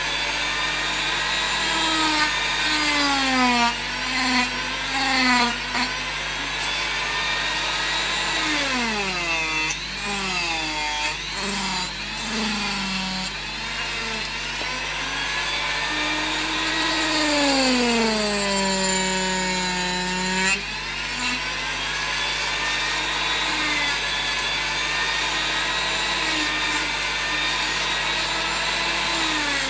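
Hand-held rotary power carving tool cutting into a wooden carving, its motor pitch sagging as the cutter bites and rising again as pressure eases, over and over. The bulk is being taken off the dog's head.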